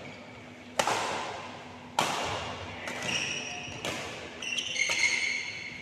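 Badminton rackets hitting the shuttlecock in a doubles rally: two sharp, loud hits about one and two seconds in, echoing in the hall, with lighter hits after. Several high squeaks follow near the end.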